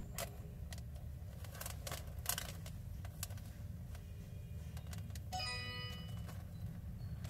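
Faint, scattered small clicks and clinks of an 18k gold-plated stainless steel twisted rope chain being handled and bent between the fingers. A short bell-like chime rings about five and a half seconds in.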